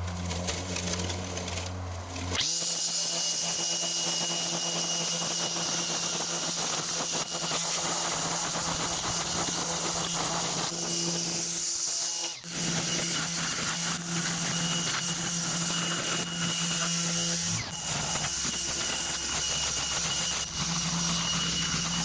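Mowrator remote-controlled battery mower running steadily as it cuts long grass, its motor's hum and whine coming up about two seconds in, with a brief dip about twelve seconds in.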